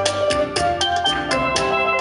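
Steel pans playing a Caribbean calypso tune together, a single lead pan with a pair of lower pans, over a fast steady drum beat.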